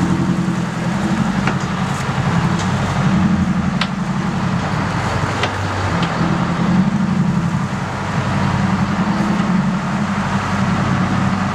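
Sportfishing boat's inboard engine running steadily at low speed, a deep even drone that swells and eases slightly, with a few sharp clicks.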